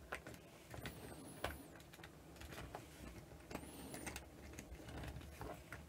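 Faint, scattered light clicks and taps of a model railway coach on a 3D-printed resin bogie being handled and rolled along a short length of track to couple up. Two faint high chirps come about a second in and again about three and a half seconds in.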